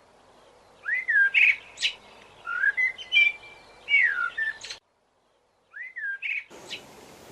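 A bird singing in short whistled phrases that swoop up and down in pitch, over faint background hiss; the sound drops out to silence for about a second about five seconds in, then the song resumes.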